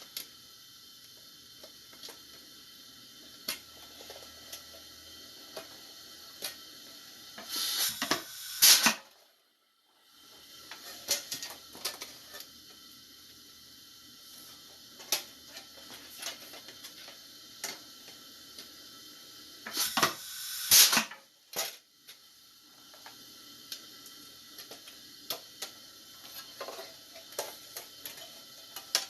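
Pneumatic foot-pedal air riveter pressing aluminium rivets: two loud bursts of air hiss, about eight and twenty seconds in. Between them come light metallic clicks of parts being handled, over a steady faint hiss of air leaking from the riveter's valve.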